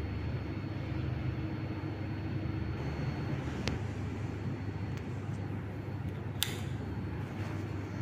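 Panasonic F-EY1511 industrial ceiling fan running with a steady low hum and rush of air. Two sharp clicks, a little before the middle and again about two-thirds in, fit its electronic regulator knob being turned to a new speed.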